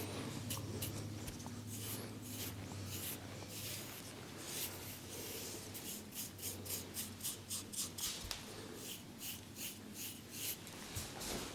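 Head-massage strokes rubbing and scratching over hair and skin, a run of short rhythmic strokes that quickens to about three a second in the second half.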